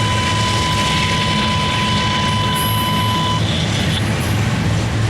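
Slow-moving CSX intermodal freight train rumbling past, steady and loud. A thin, steady high whine sounds over it and stops about three and a half seconds in.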